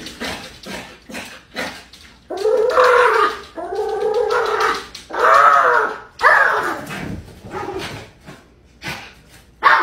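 Small fluffy dog crying at a glass door: several drawn-out, wavering cries of about a second each, with short sharp sounds before and after them.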